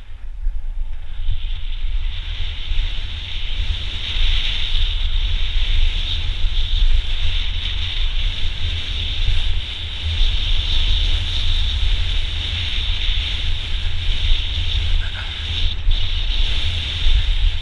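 Wind buffeting the microphone of a mountain bike descending a dirt trail, a steady heavy rumble, with the hissing rush of the tyres rolling over dirt and gravel.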